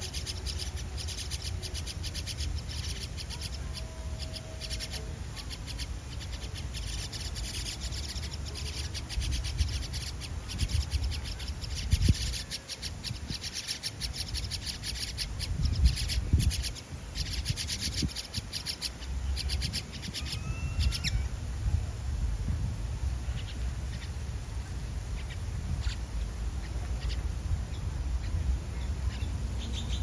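Common myna nestlings begging in a tree-hole nest while a parent feeds them: a fast, dense stream of high chirps that dies away about two-thirds of the way through. A steady low rumble runs underneath.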